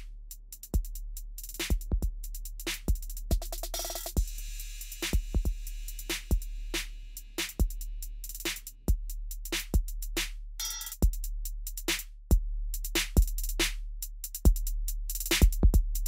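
Background music: an electronic track with a drum-machine beat over a sustained deep bass.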